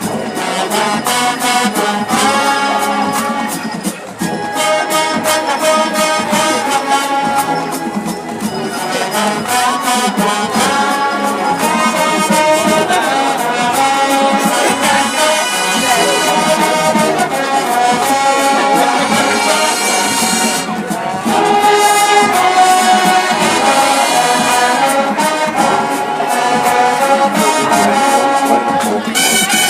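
Marching band playing a brass-heavy tune, trombones and trumpets over a steady drum-line beat, growing louder about two-thirds of the way through.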